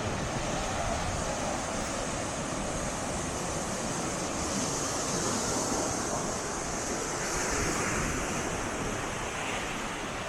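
Sea waves breaking and washing up the shore in a steady surf wash, swelling a little in the middle.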